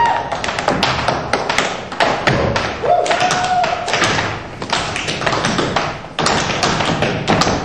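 Tap shoes striking a stage floor in rapid, irregular rhythmic patterns: a dancer improvising tap steps, many taps a second with short gaps between phrases.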